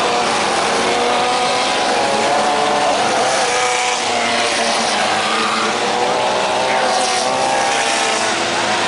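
Engines of 1600cc off-road race buggies running hard on a dirt track, several overlapping engine notes rising and falling in pitch as the buggies accelerate and ease off.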